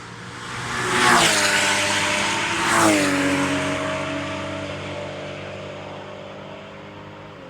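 Two race cars passing at speed about two seconds apart, each engine note dropping in pitch as it goes by, then fading away.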